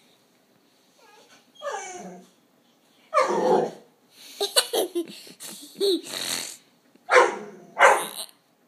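Dog vocalising at a cat: a short whine, then a series of harsh barks and grumbly growls in bursts, the loudest two close together near the end. This is the dog trying to get the cat to come out and play.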